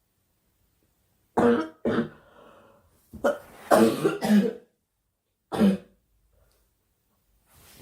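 A girl coughing in short fits: two coughs about a second and a half in, a quick run of three or four coughs around the middle, and one last cough near the end.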